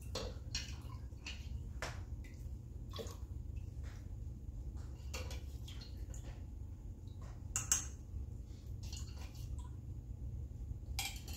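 Dye stock poured from a glass jar into a stockpot of water and stirred in: liquid sloshing and dripping, with scattered light clinks of the utensil and jar against the pot, one sharper clink about three-quarters of the way through, over a low steady hum.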